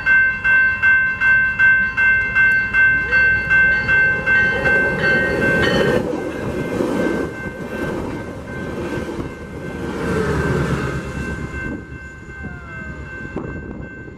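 Railroad grade-crossing bell ringing in quick even strokes, about three a second, stopping about six seconds in. Over it a train rolls past with rumbling wheel-on-rail noise that builds from about four seconds in and fades away near the end.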